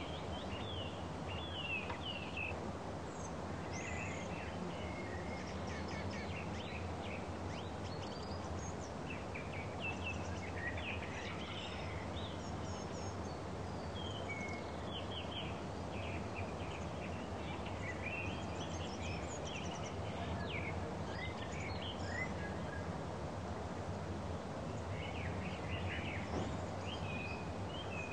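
Songbirds chirping and trilling on and off over a steady low rumble of travel noise from the moving vehicle.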